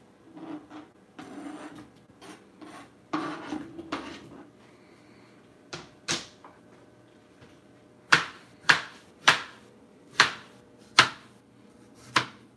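A kitchen knife scraping sliced strawberries off a plastic cutting board, with soft rustling as they drop into a plastic container. In the last few seconds come six sharp knocks, about one every 0.7 s, as the knife slices strawberries against the plastic board.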